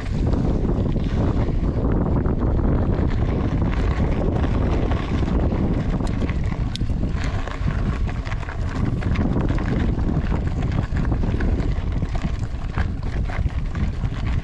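Wind buffeting the microphone while riding: a steady, loud low rumble with scattered small ticks and rattles.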